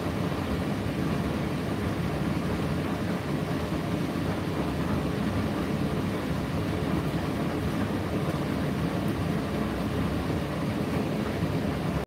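Indesit IDC8T3 8 kg condenser tumble dryer running mid-cycle: a steady, even hum of the turning drum and motor.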